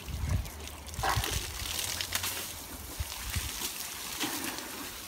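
Water from a garden hose splashing and spattering over an elephant being bathed, with a few dull low thumps.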